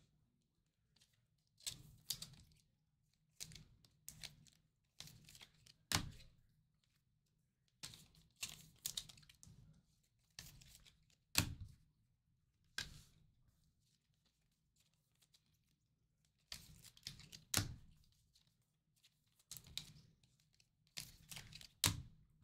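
Baseball cards being handled on a table: faint bursts of rustling and scraping every second or two, with a few sharp taps.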